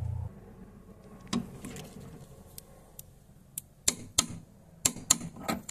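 Metal hand tools worked on the fuel filter banjo bolt: a socket extension and torque wrench give a scattered series of sharp metallic clicks and clinks, bunched together about four seconds in and again near the end.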